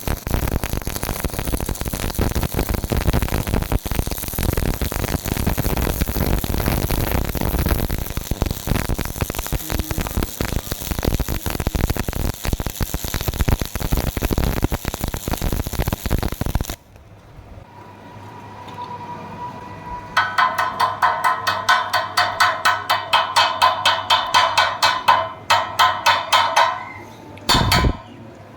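Stick (electrode) welding arc crackling and spitting steadily on steel reinforcing bar for about seventeen seconds, then cutting off suddenly. After a short pause, a hammer strikes the steel rapidly and evenly, about four ringing blows a second, for several seconds.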